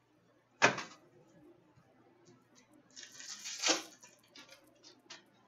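A sharp tap about half a second in, then the crinkling tear of a trading-card pack's foil wrapper being ripped open for about a second, followed by a few light ticks of handled cards.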